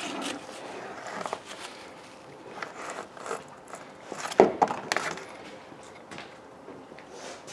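Hand tools and plastic fuel-line fittings being handled in an engine bay: scattered clicks and light knocks, with one louder knock about four and a half seconds in.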